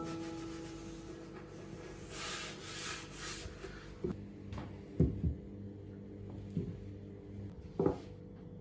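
Several soft knocks and clunks, as of objects being handled and set down, over a steady low hum, with a brief rustle about two seconds in.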